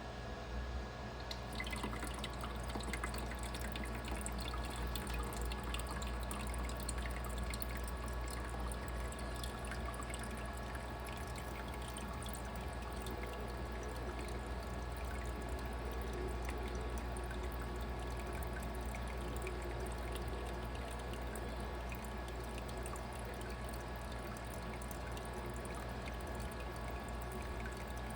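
Igloo mini ice maker's water pump running and sending water up over the ice tray, a steady pouring trickle over a low steady hum: the repaired pump is working again.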